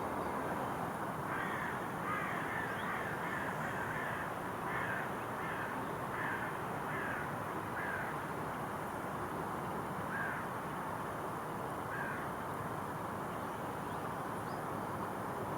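A bird's short, harsh calls given in a quick series for several seconds, then twice more singly, over a steady hum of background noise.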